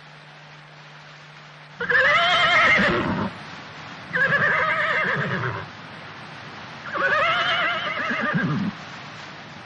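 A horse whinnying three times, each call about a second and a half long with a wavering pitch, the first starting about two seconds in.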